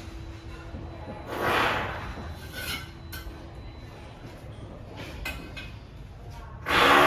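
Building work with hand tools: a short scraping rush about a second in, then a few light metal clinks and taps, over a low steady site background.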